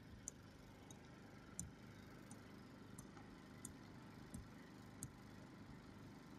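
Near silence: faint outdoor background with a light, high tick repeating about every 0.7 seconds, about eight times, stopping about five seconds in.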